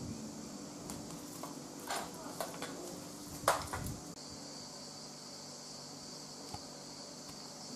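A plastic drinking straw knocking and clinking lightly against a tall glass of iced frappe, a few times between about two and three and a half seconds in, the last knock the loudest. Behind it runs a steady high hiss that shifts slightly lower after about four seconds.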